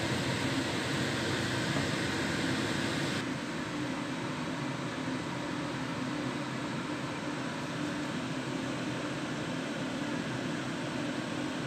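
Steady fan-like hiss and hum. About three seconds in it turns duller and a little quieter, then holds steady.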